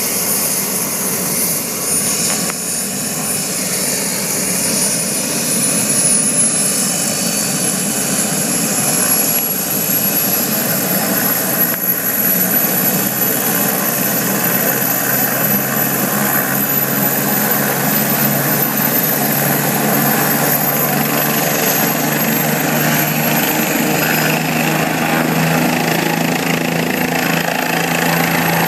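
Light turbine helicopter running on the ground: a high turbine whine climbs slowly in pitch while the rotor's low hum grows stronger through the second half.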